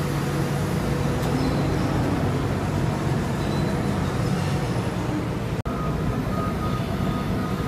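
Hitachi Zaxis 350LC excavator's diesel engine and hydraulics running with a steady drone, with a faint high steady tone over it. The sound cuts out for an instant a little past halfway.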